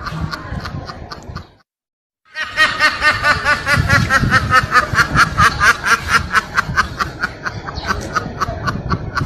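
Laughing-duck meme sound effect: a fast, cackling laugh of quick pitched pulses, about six a second. It cuts out about one and a half seconds in and starts again louder under a second later.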